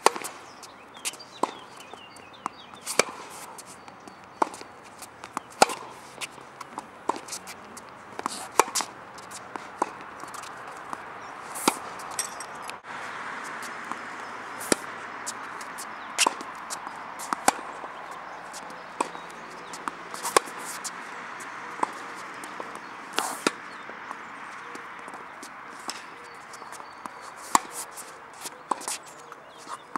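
Tennis rally on a hard court: sharp pops of the ball struck by strings every second or two, with softer clicks of the ball bouncing in between.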